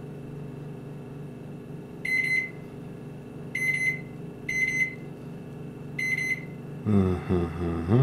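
Four short beeps from the Rolsen MG1770SPB microwave's control panel as its buttons are pressed to set power and time, spaced unevenly about a second apart, over a steady low hum.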